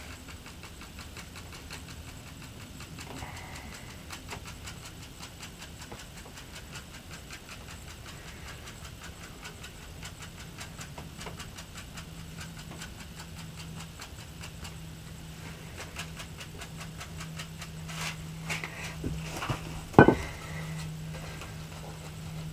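Quiet handwork in a soil bed, with faint, regular ticking throughout and a steady low hum that comes in about halfway. A sharp knock near the end as a wooden board is set down on the bed.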